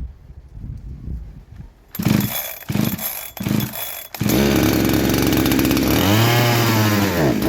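Two-stroke engine of a Husqvarna 372XP clone chainsaw, on choke and freshly fitted with a new carburettor that is being tuned. Pull-started, it fires briefly three times, then catches about four seconds in and runs steadily. Near the end it revs up and drops back.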